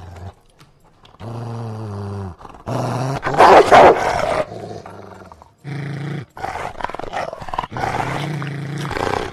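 Belgian Malinois guard dogs growling, breaking into loud barking about three seconds in, then growling again.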